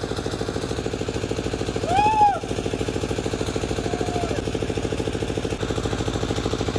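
An engine running steadily with a fast, even chugging pulse, and a person's short rising-then-falling cry about two seconds in.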